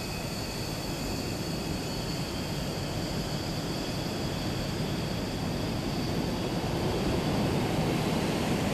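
Steady cockpit noise of a BAE Hawk jet in formation flight: rushing air and the Rolls-Royce Adour turbofan, with a faint high steady whine over it, slowly growing louder.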